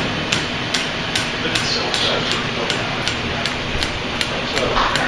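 Wobbly ceiling fan knocking in a steady rhythm, about two and a half clicks a second, once per turn of the out-of-balance blades, over the whoosh of the running fan.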